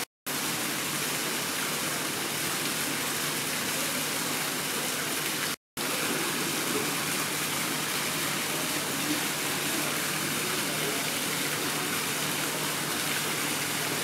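Steady rushing hiss of falling water. It cuts out suddenly for a moment twice, just after the start and just before six seconds in.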